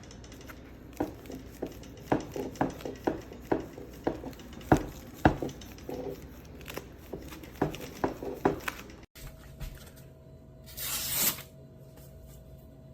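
Kitchen knife slicing a ripe tomato, the blade knocking on the cutting board in a run of irregular taps, followed near the end by a brief rustling rush.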